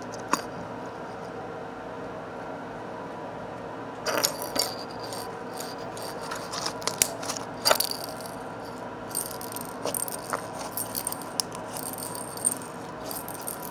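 Small objects rattling and clicking as they are handled close to the microphone, in irregular bursts starting about four seconds in, over a steady faint hum.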